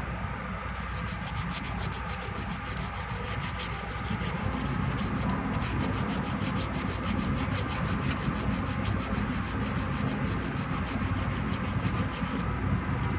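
A hand scraper rubbing in rapid, repeated strokes across a flat sealing face to scrape off burrs and old residue before sealant is applied.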